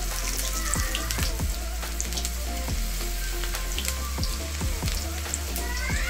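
Batter-coated banana flower strips deep-frying in hot oil in a kadai: a steady sizzle with a dense crackle of many small pops. About four seconds in, another strip is lowered into the oil.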